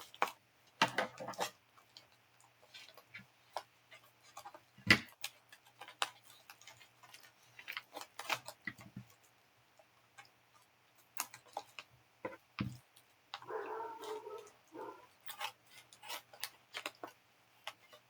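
Scattered clicks, taps and knocks of a sealed cardboard shipping box being handled and opened by hand, with a louder knock about five seconds in and a brief rustle of packing material near the end.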